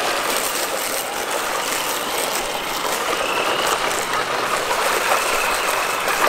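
Traxxas TRX-4 RC crawler's electric motor and geared drivetrain whining faintly while it tows two toy RC trucks. Their rubber tyres crunch and rustle over wood-chip mulch in a steady noisy hiss.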